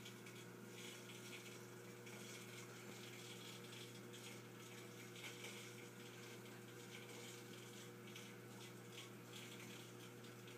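Faint aquarium running noise: a steady low hum with fizzing, bubbling water, as from the tank's filter and air bubbles.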